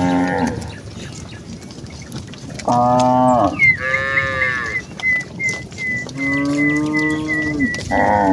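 Cattle mooing: several long, loud moos one after another, some overlapping, from a herd of village cows.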